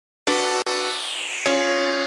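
Intro music of sustained keyboard chords, starting about a quarter second in, with a new chord struck about one and a half seconds in.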